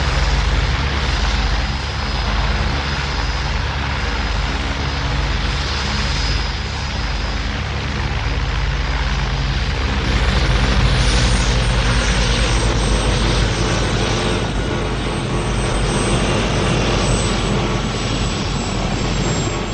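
Helicopter hovering low as it comes in to land: the rotor beats low and steady under the whine of its turbine engines. A thin high whine slides down a little about halfway through.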